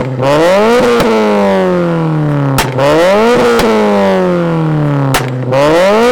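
Turbocharged Scion FR-S's flat-four engine revved through a Tomei 80R titanium cat-back exhaust three times. Each time the revs climb quickly and then fall back slowly, and a sharp click comes just before each climb.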